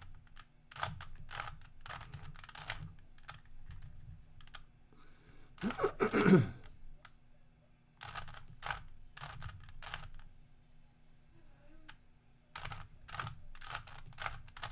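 Rubik's Cube layers being turned by hand: quick runs of small plastic clicks and rattles as the faces rotate, with short pauses between moves. A brief louder noise stands out about six seconds in.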